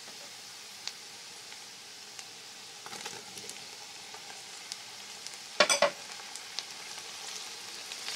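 Onions frying in hot ghee in a pan, a steady sizzle with small crackles that picks up a little as chopped tomatoes go into the fat. A brief, louder noise comes a little past halfway.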